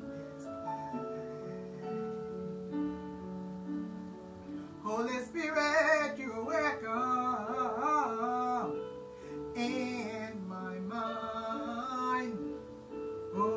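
Woman singing a gospel worship song over an instrumental accompaniment, which plays alone for the first few seconds. Her voice comes in about five seconds in with long wavering notes and runs, pauses briefly, then returns near the end.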